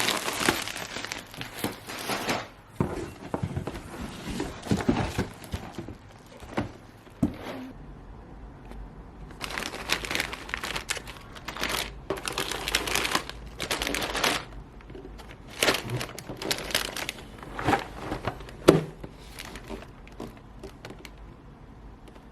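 Packaging being handled and opened, crinkling in irregular bursts, with a sharp tap a few seconds before the end.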